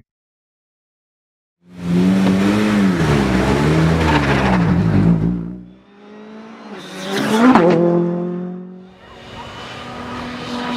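Ford Fiesta R5 rally car's 1.6-litre turbocharged four-cylinder engine revving hard at full throttle, its pitch climbing and dropping with the gear changes, then fading. About seven seconds in, a car passes at speed with a quick rise and drop in pitch, and another engine is heard coming closer near the end.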